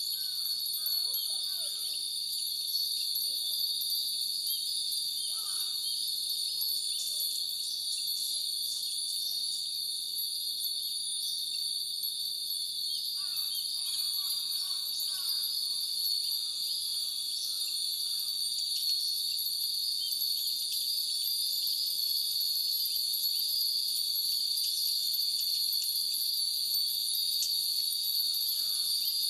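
Many Japanese wind bells (fūrin) tinkling irregularly in the breeze, over a steady high-pitched drone of insects.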